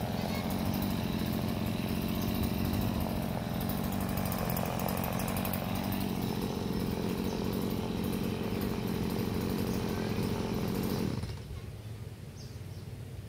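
Stihl two-stroke chainsaw engine running steadily, its pitch rising a little about five to six seconds in, then stopping abruptly about eleven seconds in.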